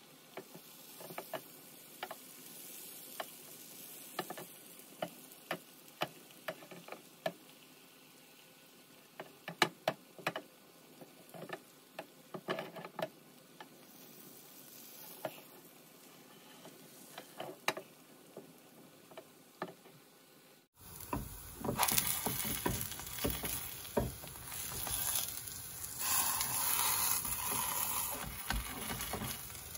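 Pancake batter frying in a non-stick pan: a faint sizzle with scattered small pops and crackles. About two-thirds of the way in it jumps suddenly to a much louder, steady sizzling.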